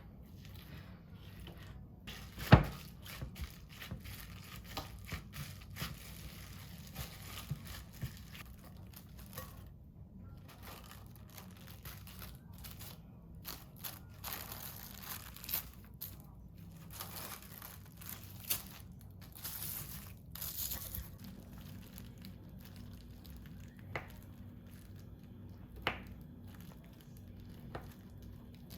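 Crinkling and rustling with scattered clicks and knocks, and one sharp knock about two and a half seconds in.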